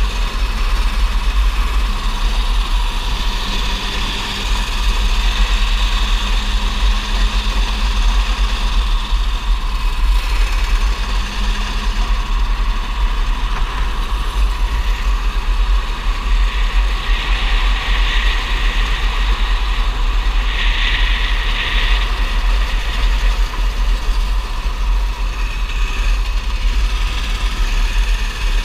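Racing kart engine running hard at racing speed, heard from on board the kart: a steady engine drone over a heavy low rumble.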